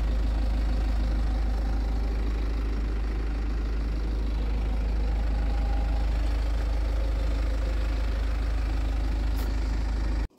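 Vehicle engine idling close by: a steady low hum that cuts off suddenly near the end.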